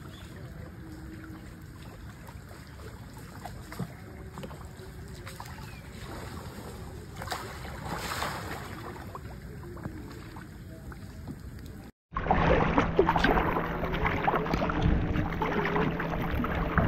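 Quiet wind and water noise. After an abrupt cut about twelve seconds in comes heavy rain pattering, much louder, over a steady low hum.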